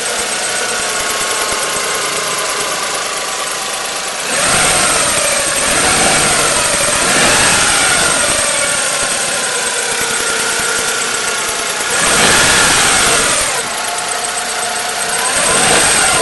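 Daewoo Matiz engine running hot, idling and revved up and back down three times. A thin high whistle runs through it and is louder while revving. The owner says this whistle is not from the alternator or the power steering and does not know its cause.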